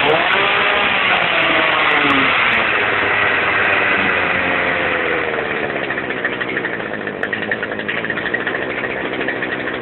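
Small two-stroke chainsaw engine mounted on a go-kart running, its pitch rising and falling over the first three seconds, then settling into a steady, fast running sound.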